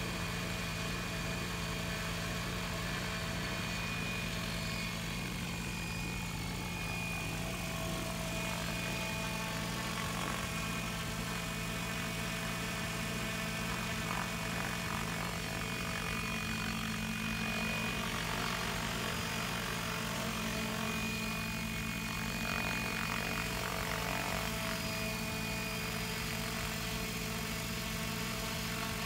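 XLPower radio-controlled helicopter in flight: its rotors and drive running steadily, a low hum with a higher whine, the pitch shifting slightly as it moves around the sky.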